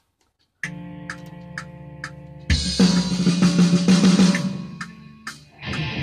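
Playback of a metal track with programmed drums from the EZdrummer virtual drum kit. It opens with a held chord and light ticks about twice a second, then about two and a half seconds in the full kit comes in with bass drum, snare and cymbals.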